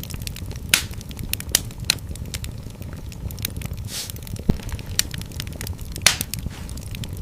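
Fireplace fire crackling: a steady low rumble of flames with frequent small snaps and about half a dozen louder pops scattered through.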